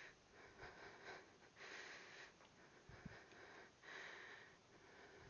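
Faint, heavy breathing of a person exercising, heard through a headset microphone: soft breaths in puffs about once a second, with one soft thud about three seconds in.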